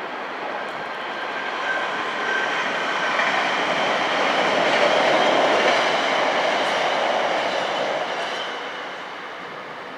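A vehicle passing close by: a rushing rumble that swells to a peak about halfway through and then fades away, with faint high squealing tones over it.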